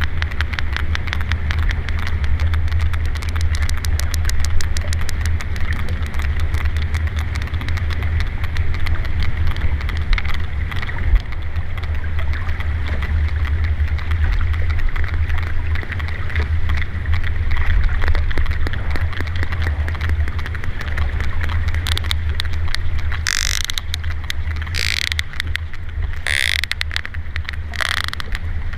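Sperm whales clicking underwater: rapid trains of sharp clicks over a steady low rumble. The clicks are densest in the first half. Near the end come four short, louder bursts of noise.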